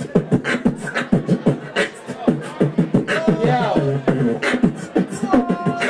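Human beatboxing into a handheld microphone: a fast run of mouth-made kick, snare and hi-hat sounds, about five or six hits a second. Hummed tones sliding in pitch come in about three seconds in, and a held hummed note comes near the end.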